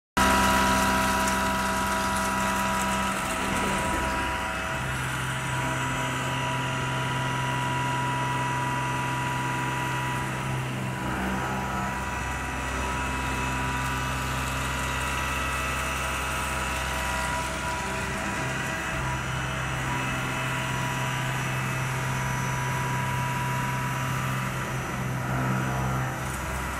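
CNC milling machine running, a steady mechanical whine made of several held tones, with low hums that change and switch over every several seconds as the machine works.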